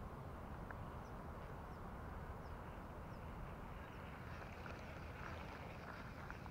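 Steady low rumble of wind on the microphone, with a few faint light clicks in the second half.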